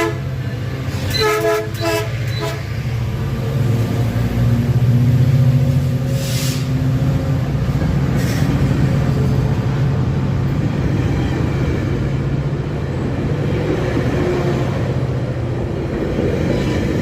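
Metrolink locomotive SCAX 894's chime horn sounds a short blast about a second in, then the train's steady low engine drone and running noise carry on.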